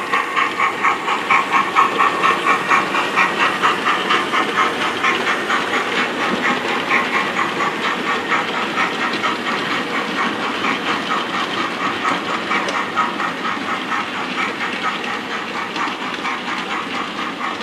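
BR Standard Class 9F steam locomotive chuffing with a steady rhythm of about three beats a second over a hiss of steam, slowly getting quieter.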